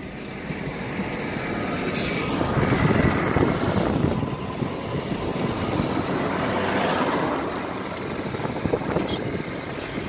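Road traffic and a car's engine heard from inside a moving car: a steady rumble and hiss that swells over the first few seconds and eases a little near the end.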